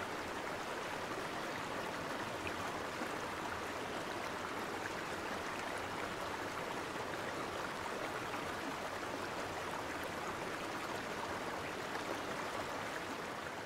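Steady rushing of river water, an even wash of water noise with a few faint ticks in it, fading out at the end.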